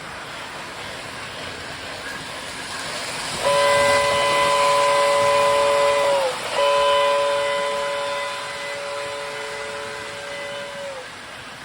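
Model train whistle blowing two long, steady blasts, the first starting about three and a half seconds in; each sags in pitch as it cuts off. A steady hiss from the running toy trains lies under it.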